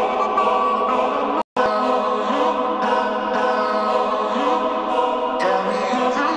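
Background music with choir-like singing voices, steady throughout, cutting out for a split second about one and a half seconds in.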